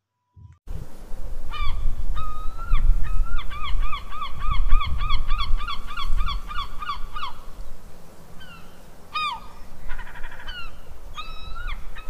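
Gulls calling. A few single calls come first, then a fast even run of yelping calls, about five a second for some four seconds, and more scattered calls near the end, all over a low steady rumble.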